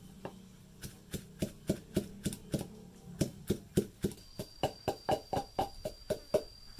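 Knife chopping on a cutting board: a steady run of sharp knocks, about three to four strokes a second, getting a little faster and louder in the second half.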